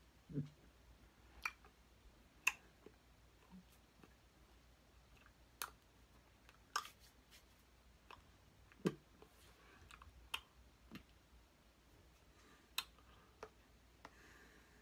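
Soft, irregular clicks and taps from a person signing, hands meeting each other and the body, about a dozen in all, with a couple of short, low vocal grunts, one near the start and one about nine seconds in.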